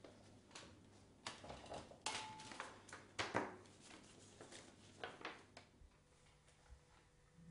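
Quiet rustling and crinkling of paper as a pile of post, leaflets and envelopes is picked up and leafed through, with a few sharper crinkles, the loudest about three seconds in.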